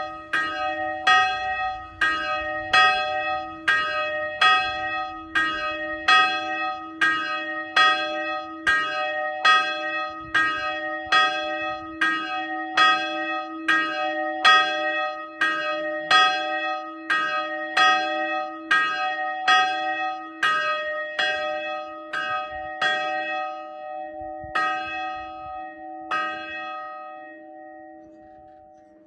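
A single church bell swinging in an open steel bell tower, its clapper striking steadily about three times every two seconds. After about twenty seconds the strikes grow sparse and stop as the swing dies away, and the bell's hum fades out.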